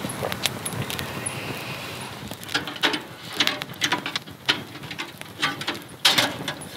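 A portable butane gas heater being handled and readied to run: a quick run of sharp mechanical clicks and knocks as its gas compartment and controls are worked, starting about two and a half seconds in.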